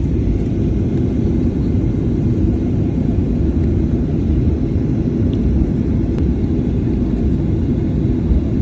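Steady low rumble inside the passenger cabin of a Boeing 737-800, the noise of its engines and airframe, with no change in loudness.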